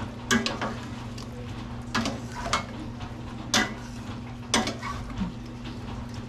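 A cooking utensil knocking against the pan about six times at uneven intervals while the mechado stew is stirred, each knock ringing briefly, over a steady low hum.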